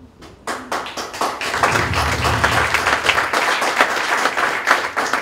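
Audience applauding: scattered claps begin about half a second in and quickly build into steady, dense applause.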